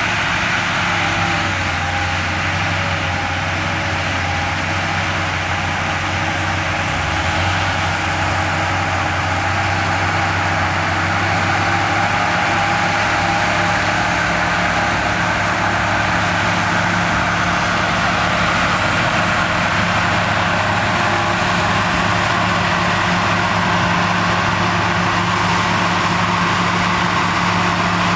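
Heavy diesel engine of earthmoving machinery running steadily at an even pitch.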